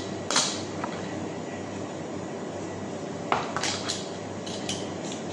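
A mango being peeled by hand with a small blade: a few short, sharp scrapes and clicks, one about half a second in and a cluster about three to five seconds in, over a steady low hum.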